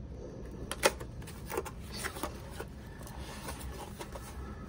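Cardboard product box being handled and turned over: a run of light clicks and taps, with one sharper knock about a second in.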